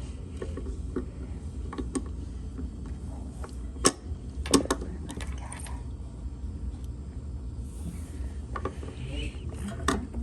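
Clicks and rattles of a vending machine coin mechanism being handled and worked open to free a jammed quarter, with a few sharper clicks about midway, over a steady low hum.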